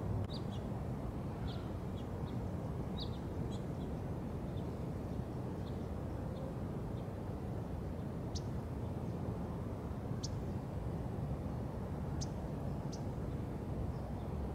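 Small birds chirping in short, sharp calls here and there over a steady low outdoor rumble, with a few sharper chirps in the second half.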